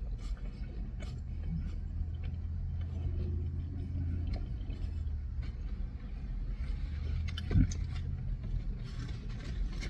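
Low, steady car rumble heard from inside the cabin, with one sharp thump about three-quarters of the way through.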